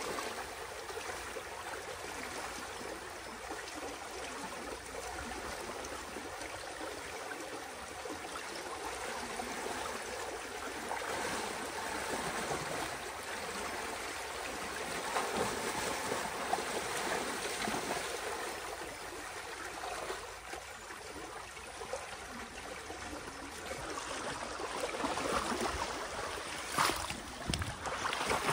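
Water rushing steadily through a breach in a beaver dam. A few short, sharp sounds come near the end.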